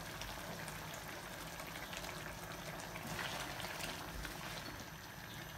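Chicken and tomato masala bubbling steadily in a karahi while oil is poured in from a bowl.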